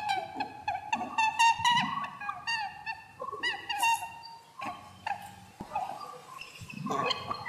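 Rapid series of short, high-pitched animal squeaks or chirps, each quickly falling in pitch, several a second at first and sparser after about three seconds. This is a game soundtrack meant to draw a cat's attention, which the uploader calls the sound of a rabbit.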